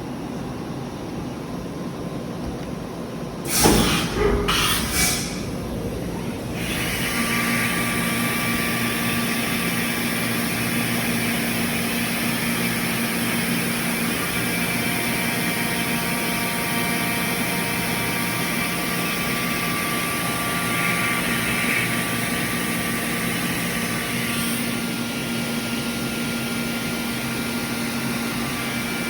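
CNC machining centre running: a few sharp knocks about four seconds in, then a louder steady whir with several fixed tones as the machine starts up and keeps running.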